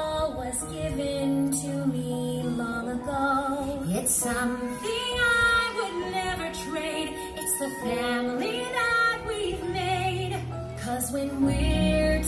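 Music with a woman singing a melody over instrumental accompaniment.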